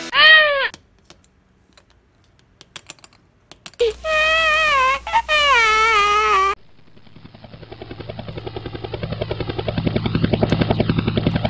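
Cartoon crying sound effect: a brief whine, then a wavering wail that falls in pitch for about three seconds, with light plastic clicks from toy figurines being handled in between. After that, a helicopter sound effect: a rapid, pulsing chop that grows louder over the last few seconds.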